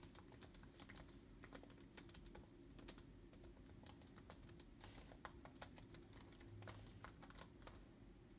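Fingers typing on a laptop keyboard: faint, quick, irregular keystroke clicks.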